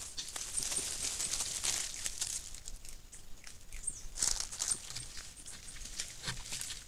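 South American coati walking through dry leaf litter close by: crackling, rustling footsteps in irregular bursts, loudest about four seconds in.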